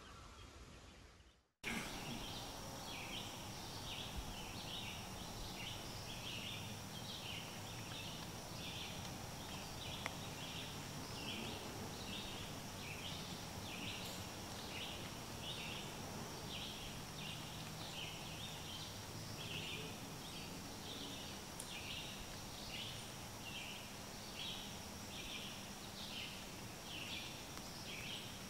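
Night chorus of chirping insects: short chirps repeating about twice a second over a steady high-pitched drone, starting abruptly about a second and a half in.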